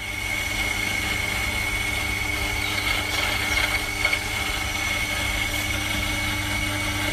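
Electric coffee grinder running steadily as it grinds coffee beans: a constant motor hum with a steady high whine.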